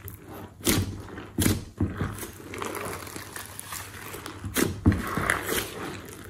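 Glossy slime being stretched, folded and pressed by hand: sticky, wet squelching and crackling with several sharp pops as it pulls apart and is pushed down.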